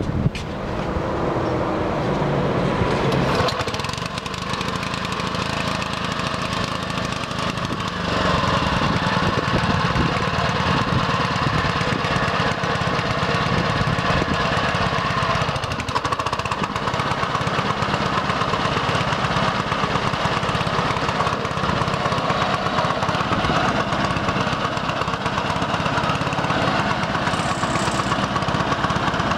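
Honda HRA215 self-propelled lawn mower's single-cylinder four-stroke engine running steadily just after starting. It steps up in level about eight seconds in and holds there.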